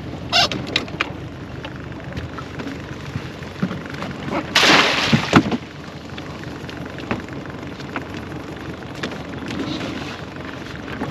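Low rumble of a small boat on the water with wind on the microphone. A few sharp knocks come within the first second, and a loud rushing noise lasting about a second starts about four and a half seconds in.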